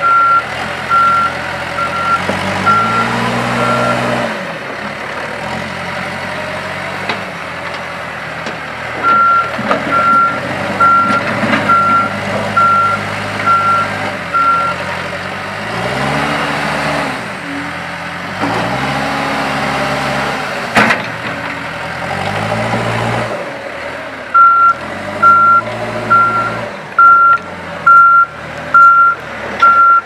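2011 Case 580N backhoe's 4.5-litre four-cylinder turbo diesel running and revving up and down several times as the machine manoeuvres. Its reverse alarm beeps steadily in three spells while it backs up. A single sharp click comes about two-thirds of the way through.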